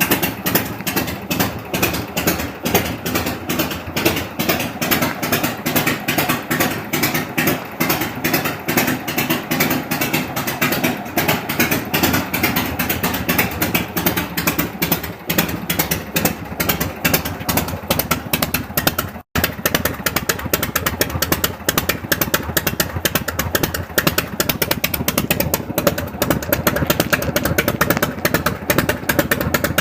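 1974 Harley-Davidson FLH's 74-cubic-inch Shovelhead V-twin running at idle with an even, rhythmic firing beat, freshly set up with adjusted pushrods and carburettor and a repaired exhaust leak. The sound drops out briefly at about 19 seconds, then the engine carries on.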